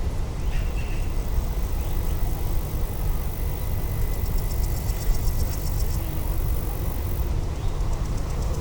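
Outdoor ambience dominated by a steady low rumble, with a faint short chirp about half a second in and a fine high ticking in the middle.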